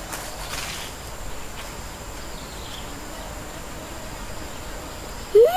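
Outdoor background with a thin, steady, high insect buzz. Near the end, a loud single call cuts in, rising and then falling in pitch.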